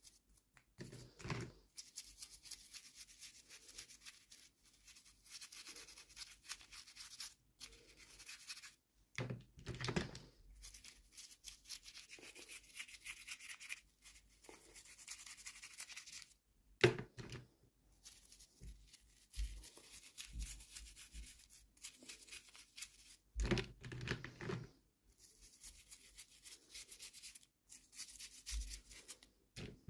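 Hands unboxing small plastic toys: packaging rustling and scraping, with a few knocks as pieces are set down or tapped, about four times.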